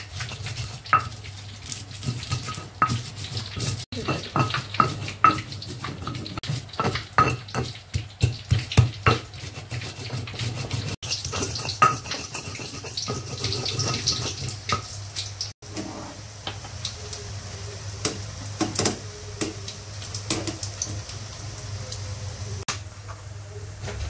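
Stone pestle crushing and grinding chilies, garlic and shallots in a stone mortar (Indonesian ulekan and cobek): repeated stone-on-stone knocks with gritty scraping. The knocks come thick and fast for about the first half, then it is mostly grinding as the spices turn to a paste.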